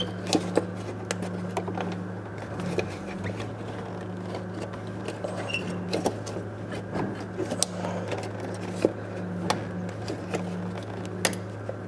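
Plastic wiring connector on a Toyota Tundra headlight bulb being shaken up and down and side to side to work it loose, giving irregular sharp clicks and rattles. A steady low hum runs underneath.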